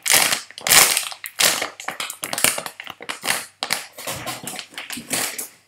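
Crinkling and crackling of a squishy toy's thin plastic bag, in quick irregular bursts as the bagged squishy is squeezed and handled.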